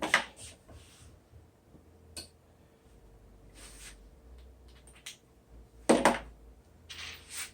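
A few light clicks and taps of hand tools and hardware being handled. A faint steady hum sits under the quiet stretch.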